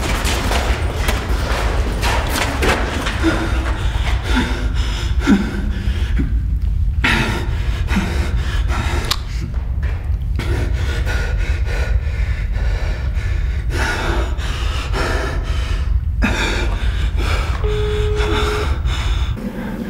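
A man's heavy, gasping breathing over a low rumbling drone; the drone stops near the end.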